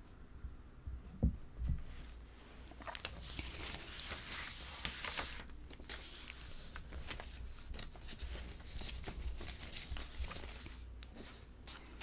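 Close rustling and crinkling handling noise with many small clicks, loudest about four to five seconds in, after two low thumps just over a second in.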